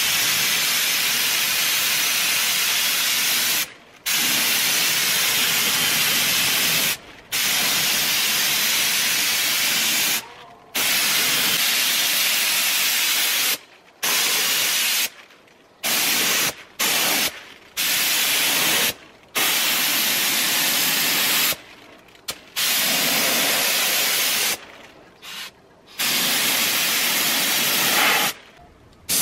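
Air-fed gravity-feed paint spray gun hissing as it sprays, in about a dozen passes of one to three seconds each. The hiss cuts off sharply between passes as the trigger is released.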